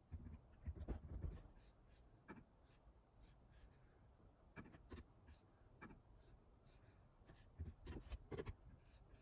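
Faint, irregular clicking of computer keyboard keys being typed.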